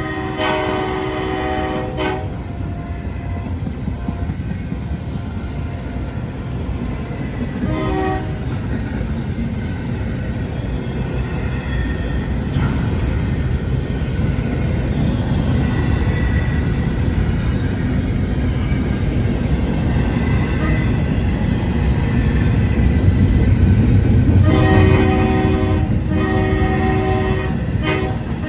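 CSX freight train with diesel locomotives: a steady low rumble of the train rolling on the rails, building up as it comes closer. The locomotive's chord horn sounds once for about two seconds at the start and briefly again about eight seconds in. Near the end it blows a series of separate blasts.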